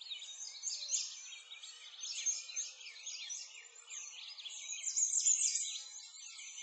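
Many birds chirping and twittering at once: a dense chorus of short, high, overlapping calls.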